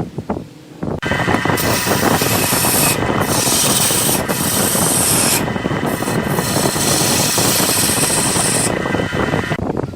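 Wood lathe with a tool or abrasive rubbing against the spinning wood: a loud rasping hiss that starts about a second in and surges and drops several times as contact comes and goes.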